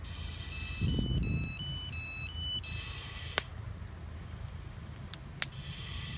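Short electronic alert melody of high tones stepping up and down in pitch for about two seconds, with a low thump about a second in, over a steady low rumble. A few sharp clicks follow.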